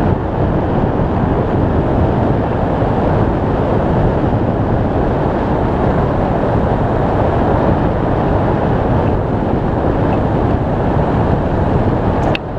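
Steady, loud wind rushing and buffeting over the microphone of a camera mounted on a hang glider in flight. A brief dip and a short click come near the end.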